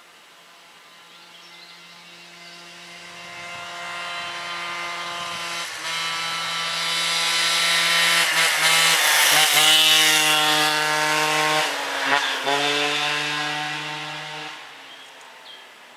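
Kitted 50cc two-stroke engine of an MBK 51 moped, fitted with a Doppler ER1 air box and a 15 mm Dellorto PHBG carburettor, passing by at speed: it approaches and swells, is loudest about ten seconds in, and dips briefly a few times as the throttle eases. Its pitch drops as it goes by and it fades away. The carburettor is jetted 3–5 points too lean, a setting that, per the owner, later overheated the engine and melted the piston's intake edge.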